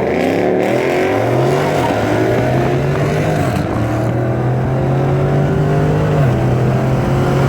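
V8 car engine accelerating hard, its pitch climbing and dropping back twice in the first couple of seconds as it shifts up, then running on at a steady pitch.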